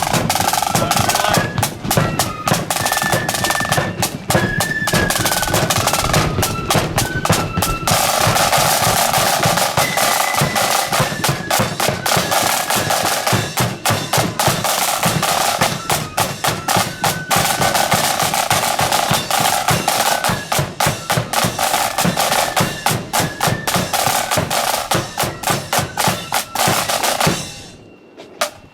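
Marching band playing on the march: snare drums rolling and a bass drum beating under a high, stepping melody. The music stops near the end.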